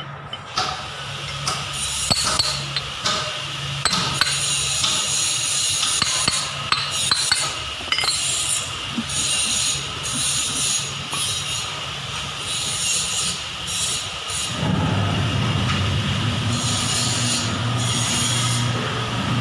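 Hand-tool work on a removed tractor front axle cover: irregular scraping and brushing strokes with sharp clinks and taps of metal. About three-quarters of the way through, a steady low hum sets in beneath it.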